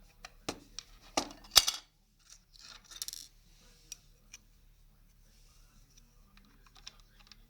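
Small hard plastic clicks and knocks from a toy washing machine being handled. There are several in the first two seconds, the loudest about a second and a half in, then a short rattling rustle about three seconds in and a few faint ticks after.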